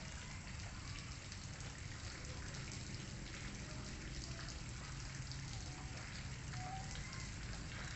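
Steady background noise with a low rumble and light, rain-like crackling throughout; no clear event stands out.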